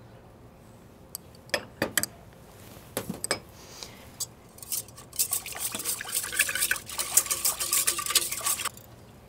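Wire whisk stirring water, yeast and honey in a stainless steel mixer bowl to dissolve them. A few scattered taps, then about four seconds of rapid clinking and scraping of the wires against the steel, stopping shortly before the end.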